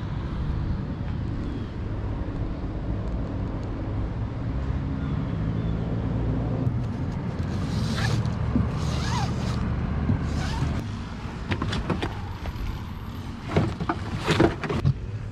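Kayak gear being handled: straps, buckles and a clip-on seat give sharp clicks, rustles and short scrapes in the second half. Underneath is a steady low rumble that fades about two-thirds of the way in.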